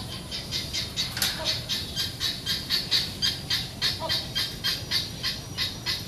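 A bird calling in a fast, regular series of short, high notes, about four a second, over a steady low hum.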